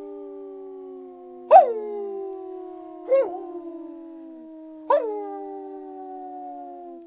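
A chorus of wild canine howls, several voices overlapping. Three new howls start about a second and a half apart, each rising quickly and then holding a long, slowly falling note.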